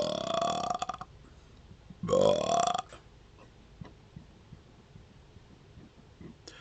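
A man's burps brought up from swallowed air: a long one that ends in a rattle about a second in, then a short, loud burp rising in pitch about two seconds in. Faint clicks and gulps follow as more air is swallowed.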